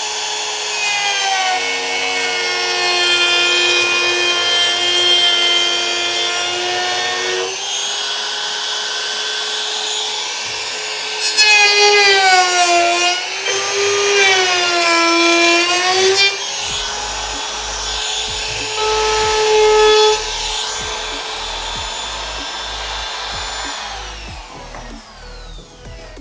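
CAZAR CZ-TVS036 wood trimmer/router running with a high, steady whine. About halfway through, its pitch dips and wavers as the bit cuts a profile along the edge of an MDF board. It winds down near the end.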